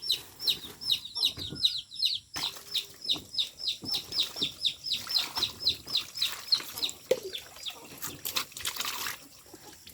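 A chick peeping over and over, short high chirps that fall in pitch, about five a second, until they stop near the end, followed by a brief rustle.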